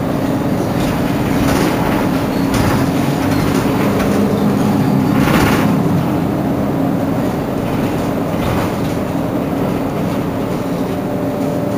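Mercedes-Benz Citaro G C2 articulated city bus's diesel engine running with a steady drone, and a short hiss about five seconds in.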